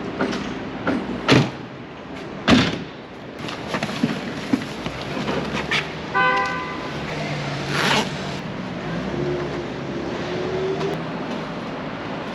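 Luggage and gear knocking and clattering as it is unloaded from a van onto a cart amid steady traffic, with two loud knocks in the first few seconds and a short car horn toot about six seconds in.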